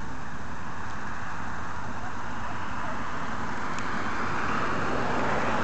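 Steady rushing outdoor background noise with no distinct events, growing slightly louder past the middle.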